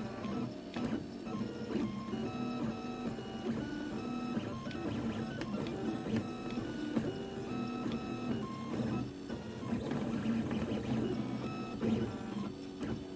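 Anet A8 3D printer printing, its stepper motors whining in a quick run of short tones that jump in pitch with each move of the print head and bed, over a steady mechanical hum.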